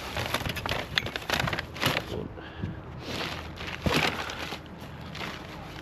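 Clattering and rustling of junk being handled and shifted in a kerbside pile, with a string of irregular knocks and clicks; the strongest come about one, two and four seconds in.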